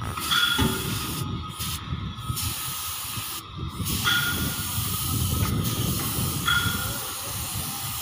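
Compressed-air paint spray gun hissing steadily as it sprays paint, the hiss breaking off briefly three times when the trigger is let go, over a low rumble.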